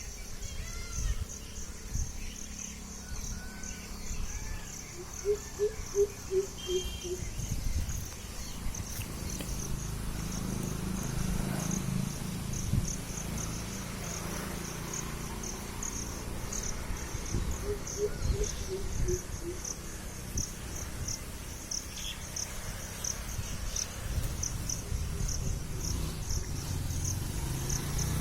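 Crickets chirping in a steady, fast-pulsing high trill. Twice, about five seconds in and again near eighteen seconds, an animal gives a run of about six short low calls, the loudest sounds here, over a low rumble.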